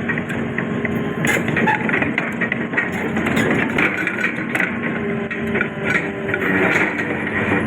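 Heavy diesel machinery running steadily, with rattling and irregular metallic clanks throughout.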